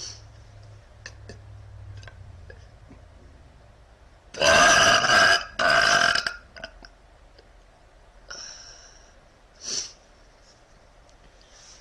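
A woman burps once, long and loud, about four seconds in, the burp breaking into two parts with a strong pitched tone. Two much fainter, shorter sounds follow a few seconds later.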